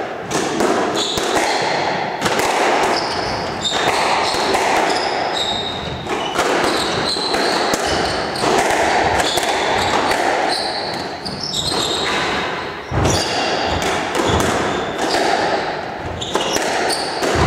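Squash rally: the ball is struck by rackets and hits the court walls again and again at an irregular pace, with short high squeaks of players' shoes on the wooden court floor between shots.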